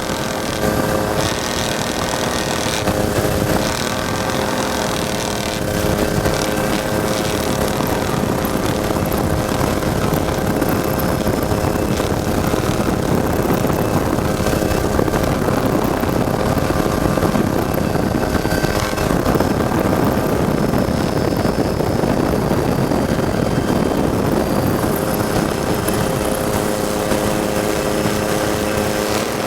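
Engine of a Ford EcoBoost spec trophy truck running steadily at speed, with a rushing noise under it that grows louder around the middle.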